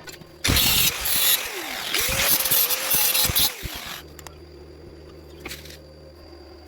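Stick welding arc crackling and hissing on a thin square tube for about three and a half seconds, then cutting off suddenly, leaving a low steady hum.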